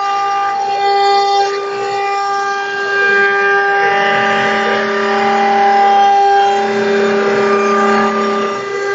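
Homemade CNC machine running, its motors whining in several steady tones that shift and glide in pitch as the axes move.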